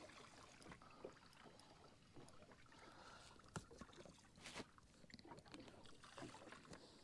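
Near silence: a faint steady background with a couple of soft clicks, about three and a half and four and a half seconds in.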